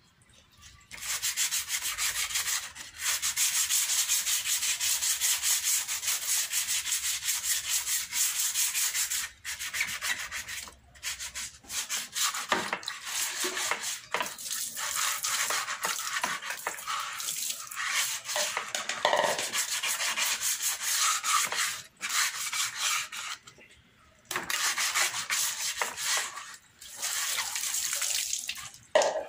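Sandpaper rubbed briskly back and forth over a plastic monoblock chair leg: a fast, scratchy rasp in runs of several seconds with short breaks between them.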